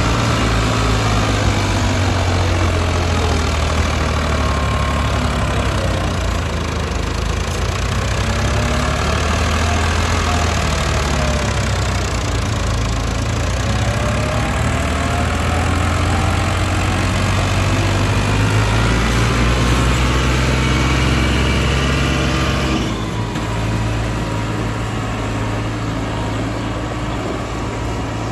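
Farm tractor's diesel engine running hard while pulling a heavily overloaded sugarcane trolley, a steady low engine note. About three-quarters of the way through, the sound changes abruptly and becomes a little quieter.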